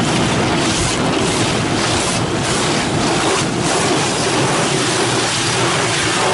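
Automatic tunnel car wash spraying water and foam over a car, heard from inside the cabin: a steady loud rushing and splashing on the windshield and body.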